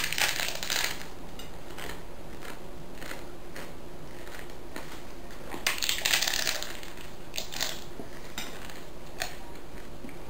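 Hard corn taco shells filled with chopped apple crunching as they are bitten into and chewed. There are two loud crunching bites, one at the start and one about six seconds in, with smaller crackles of chewing between them.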